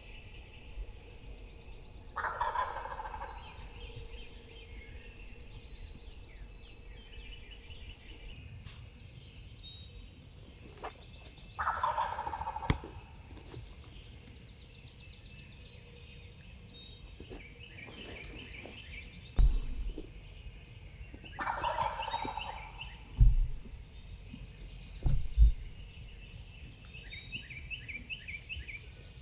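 Wild turkey gobbler gobbling three times, about ten seconds apart, with small birds chirping in the background. A few sharp low thumps in the second half are the loudest sounds.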